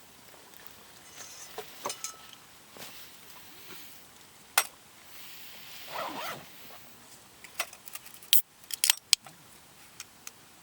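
Objects being handled by hand: scattered sharp clicks and knocks, a short rustle about six seconds in, and a quick run of clicks near the end.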